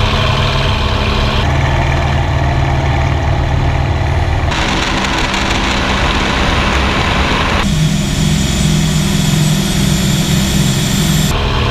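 WWII fighter piston engines running steadily in flight, heard on board, with the sound changing abruptly every few seconds as it switches between an F4U-4 Corsair's Pratt & Whitney R-2800 radial and a P-38 Lightning's twin Allison V-12s. A stretch in the middle carries much more airflow hiss.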